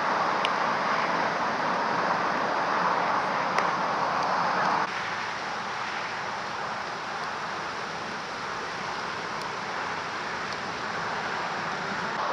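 1945 GMC DUKW amphibious truck's straight-six petrol engine running as the truck drives, a steady mechanical rush that drops suddenly in level about five seconds in.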